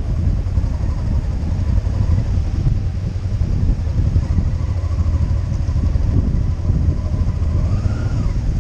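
Motorcycle engine running as the bike rides along a sandy track, mixed with heavy wind buffeting on the microphone.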